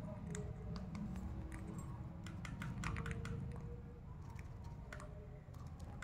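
Rose-ringed parakeet feeding from a plastic cup: irregular small clicks of its beak against the cup and the food, with a quick run of clicks about two to three seconds in, over a low background rumble.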